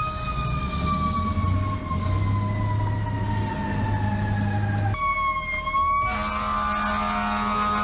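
Emergency vehicle siren winding down in one slow falling wail over about five seconds, then a short tone that dips and rises again.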